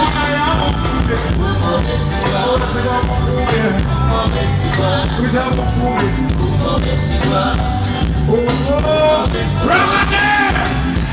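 Loud amplified music with a steady beat and a voice singing over it.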